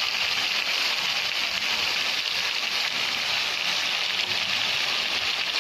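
Sliced onions with garlic and ginger paste frying in hot oil in a karai, a steady even sizzle.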